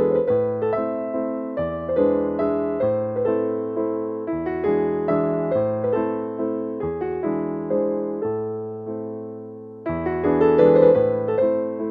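Background piano music, a gentle melody of notes struck one after another and left to fade.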